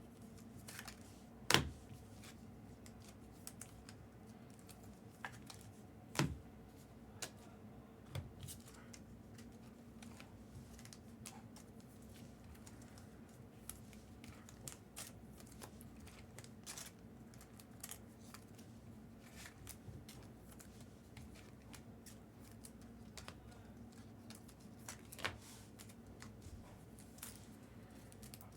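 Trading cards and packs being handled: scattered light clicks and taps, a few sharper ones, with some cutting and crinkling of pack wrappers, over a faint steady hum.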